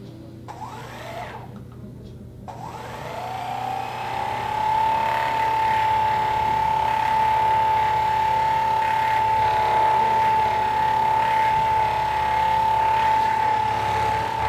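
Theragun percussion massage gun switched on: its motor spins up with a rising whine about two and a half seconds in, then runs at a steady high whine with a low buzz beneath.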